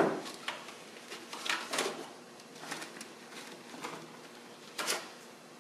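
Scattered clicks, knocks and light scrapes as a computer hard drive and its SATA cables are handled and pulled out of a desktop tower case. The louder clicks come about one and a half seconds in and again near the five-second mark.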